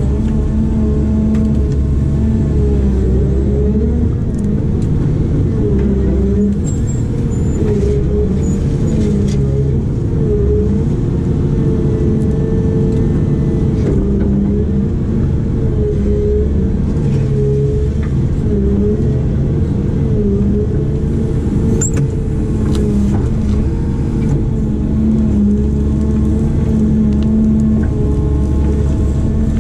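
Diesel engine of a heavy digging machine running steadily, its pitch dipping briefly every few seconds as it takes load.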